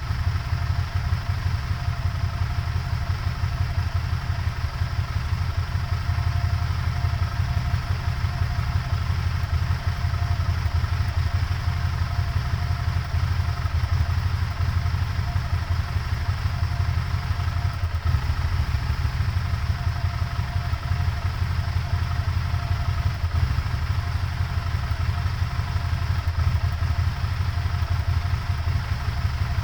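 Car engine idling roughly with a steady low pulsing, a rough idle that replacing the evaporative purge valve has not cured.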